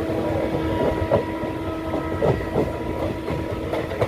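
Passenger train heard from on board, its wheels knocking and clattering over the rails, with a steady whine from the start until just before the end.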